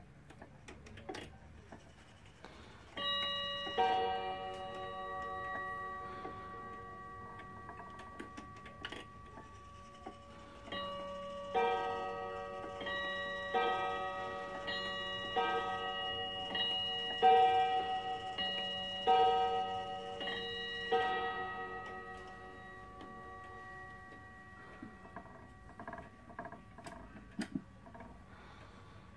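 Warmink Friesian tailed wall clock striking bim-bam on two bells of different pitch. One bim-bam pair comes about three seconds in, then a run of about six pairs starts about eleven seconds in, and the bells ring on and fade. Ticking and light clicks are heard as the hands are turned.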